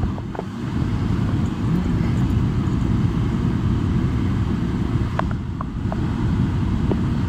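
Car driving, heard from inside the cabin: a steady low rumble of engine and road noise, with a few faint ticks about five seconds in.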